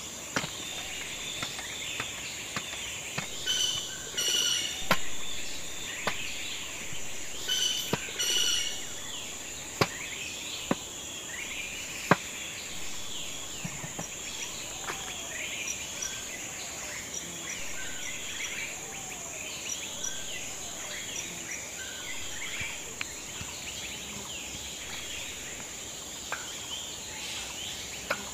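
Woodland ambience: a steady high insect drone with many birds chirping throughout. Now and then there is a sharp knock of a knife striking a wooden chopping block.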